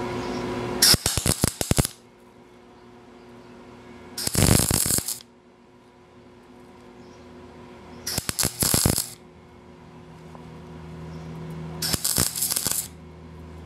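MIG welder laying short tack welds along a butt seam in 18-gauge sheet steel: four bursts of crackling arc, each about a second long, spaced roughly four seconds apart.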